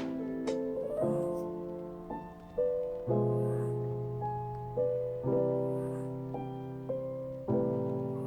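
Background music: slow piano chords, each struck and left to ring and fade, a new chord about every one to two seconds.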